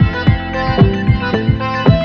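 Electronic background music with a steady beat of deep kick drums under sustained synth chords.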